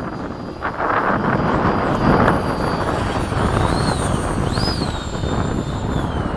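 Electric ducted-fan RC jet whining overhead, its high-pitched fan whine swooping up and back down in pitch a couple of times in the second half as it passes and turns. Heavy wind buffeting on the microphone is loudest, especially about a second or two in.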